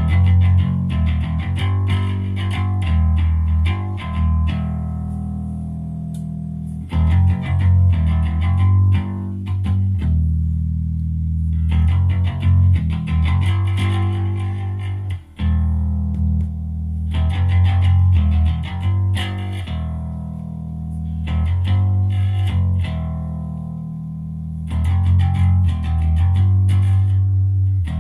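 Electric bass guitar played through an Ampeg SVT-style bass amp clone in a sound test. It plays low riffs in phrases of a few seconds each, with short pauses where the notes ring out between them.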